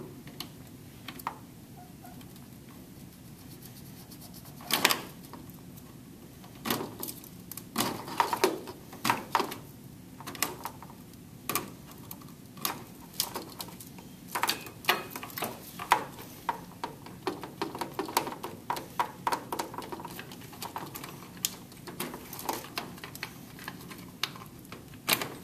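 Plastic wire-harness connectors being unplugged from a washing machine's control board: a string of irregular clicks, snaps and light knocks, the loudest about five seconds in.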